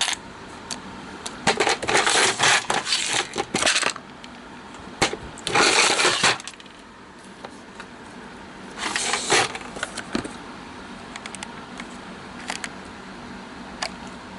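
Small metal screws clinking and rattling as they are handled, in three bursts of a second or two each, with scattered single clicks between.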